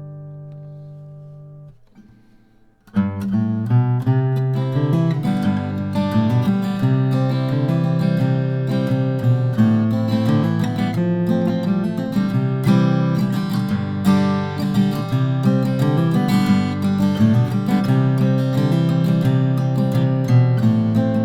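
Martin acoustic guitar played solo: a chord rings out and fades, then after a short pause about three seconds in the playing starts again and runs on as a busy stream of plucked and strummed notes.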